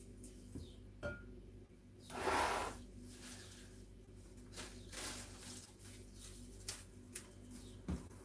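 Cut flower stems being handled on a worktable: a swishing rustle about two seconds in, scattered light knocks, and a few sharp clicks near the end.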